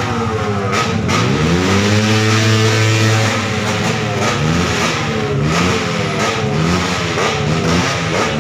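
Motorcycle engine being revved hard over and over, its pitch climbing and dropping. It holds one long high rev for a couple of seconds, then gives a run of short, quick blips about once a second.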